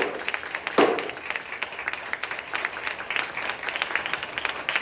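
Small audience applauding steadily after a Kaga lion dance performance, with two sharp, louder strikes at the start, just under a second apart.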